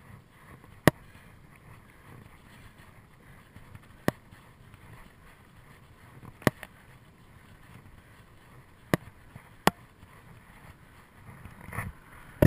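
Bicycle rolling along a paved path: a low steady rumble of tyres and wind, with five sharp knocks at irregular intervals, two of them close together near two-thirds of the way in. The rumble grows louder near the end.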